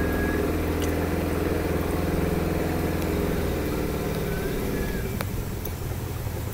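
Outboard motor of a motorized canoe running steadily, easing off about five seconds in.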